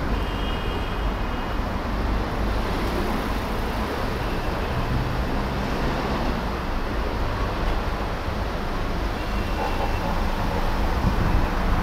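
Steady rumble of engine and road noise from a vehicle moving slowly through dense city traffic, with no distinct events.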